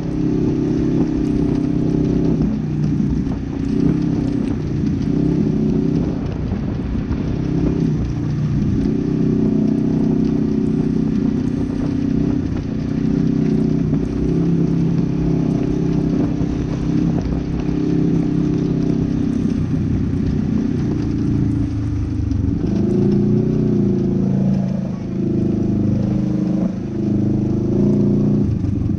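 Polaris RZR 900 XP side-by-side's twin-cylinder engine running continuously, its pitch rising and falling repeatedly with the throttle, with the swings strongest in the last several seconds.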